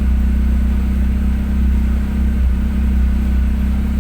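BMW E36 316i 1.6-litre four-cylinder engine idling steadily and smooth on a cold start, with no rise or fall in speed: the rough idle is cured after cleaning the idle control valve.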